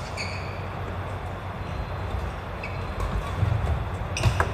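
Steady low rumble of a large sports hall with a badminton game in play. A sports shoe squeaks briefly on the wooden court just after the start, and a racket hits a shuttlecock sharply near the end.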